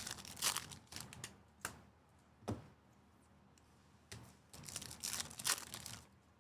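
Trading cards and pack wrappers being handled: quick rustling and clicking in two flurries, with a single sharp tap about two and a half seconds in.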